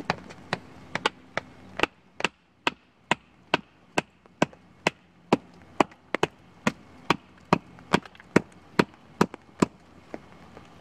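Steady hatchet blows on wood, a little over two a second, first chopping and then hammering a forked wooden stake into the ground. The knocking stops just before the end.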